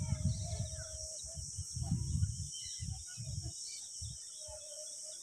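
A steady high insect trill with scattered short chirps of small birds, under low rumbling knocks on the microphone that are strongest in the first second and thin out toward the end.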